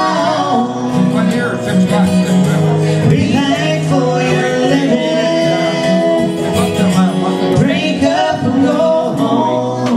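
Live country song played on acoustic guitar, with a voice singing held, gliding notes over it.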